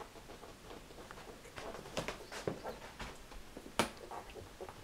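Newborn red standard poodle puppies suckling at their mother: irregular little wet clicks and smacks, with one sharper click about four seconds in.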